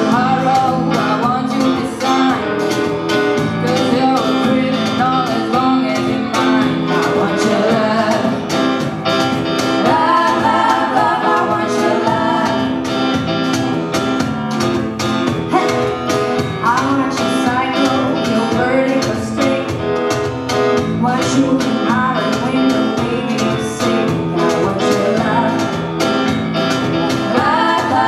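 Live band music with young women singing the lead and backing parts over electric bass, acoustic guitar, keyboards and a steady beat.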